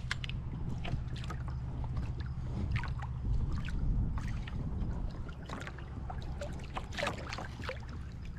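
Small waves slapping and lapping irregularly against the hull of a drifting fishing kayak, over a steady low rumble of wind on the microphone.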